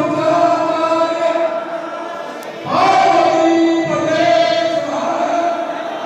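Devotional chanting by a group of voices in unison, long held notes that pause briefly and start again about two and a half seconds in.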